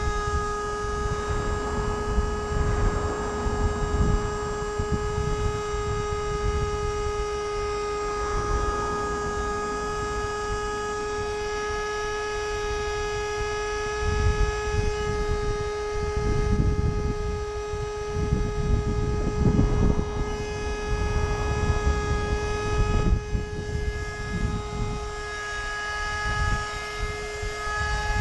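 Electric inflation pump running steadily with a high, even motor hum as it pumps up an inflatable boat's tube, while low wind rumble buffets the microphone at times.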